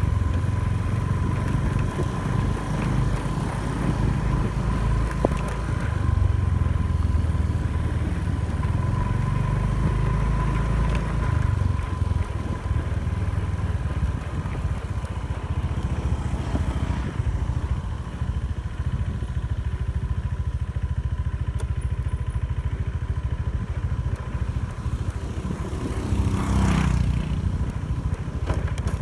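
Scooter engine running steadily during a ride, with wind rushing over the microphone and a steady high whine. A brief louder swell comes near the end.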